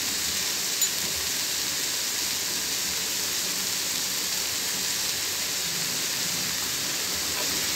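Chopped onions sizzling in hot oil in a non-stick kadai: a steady frying hiss.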